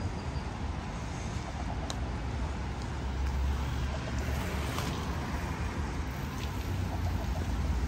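Street traffic: cars passing with a steady low rumble.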